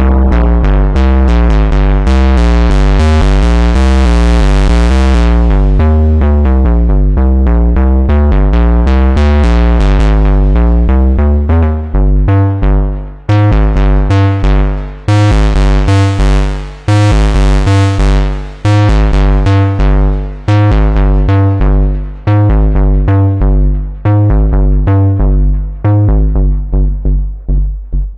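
Moog Subsequent 25 analog synthesizer playing a bright bass patch in a fast, even run of notes with a heavy low end. The tone turns duller about five seconds in and brightens again around the middle.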